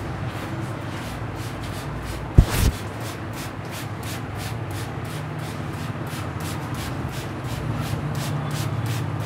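Hands rubbing briskly over hair and scalp in an Indian head massage, a quick repeated rubbing of about four to five strokes a second. One sharp slap-like hit comes about two and a half seconds in.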